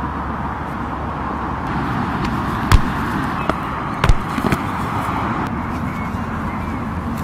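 Steady outdoor microphone noise with two sharp thuds about a second and a half apart, the first the loudest: a football being struck during a goalkeeping save.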